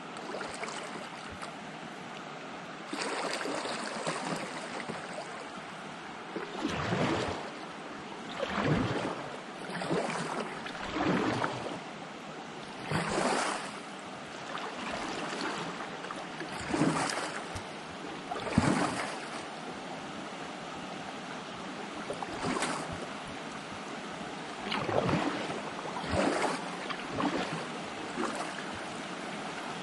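Fast river current rushing around a kayak, with a louder splash swelling up every one to three seconds as the paddle blade dips into the water.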